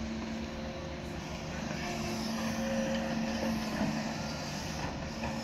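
Diesel engine of a Doosan DX140 wheeled excavator running steadily under load as it digs and swings a bucket of soil over a dump truck, getting a little louder in the middle.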